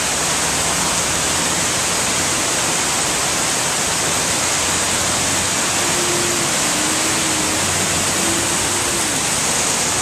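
Steady rushing noise of running water. A faint wavering tone comes in about halfway through and fades out near the end.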